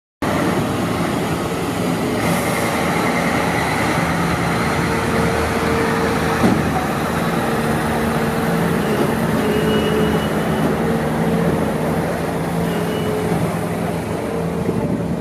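Mercedes-Benz heavy-haul tractor unit's diesel engine running steadily as it pulls a heavily loaded low-loader at walking pace, with a steady drone and one sharp knock about six and a half seconds in.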